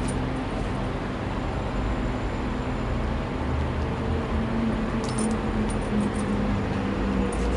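A steady low rumble and hum, with a few faint short clicks a little past the middle as a dog mouths a rubber chicken toy on a tile floor.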